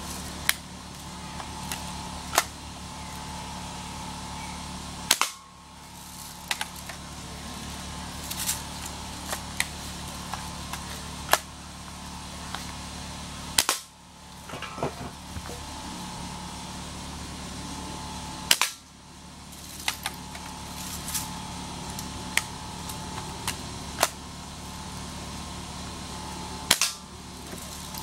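Daisy Grizzly single-pump BB air rifle firing four sharp shots several seconds apart. Between the shots come lighter clicks and clacks as the rifle is pumped and cocked.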